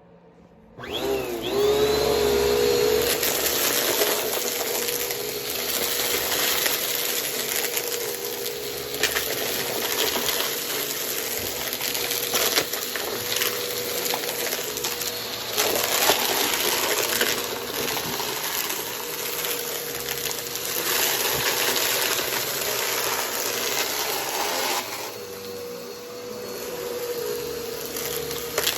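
Vacuum cleaner switched on about a second in, its motor rising to a steady whine, then sucking up crunchy debris that crackles and rattles through the nozzle throughout.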